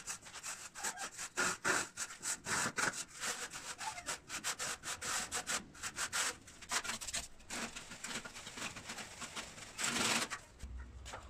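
Trowel scraping and smoothing wet cement mortar on the edge of a concrete slab, in quick, irregular strokes, with one longer scrape near the end.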